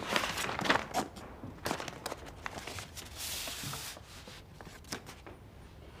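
Light footsteps and small clicks and knocks of things being handled, with a brief hiss a little after three seconds in.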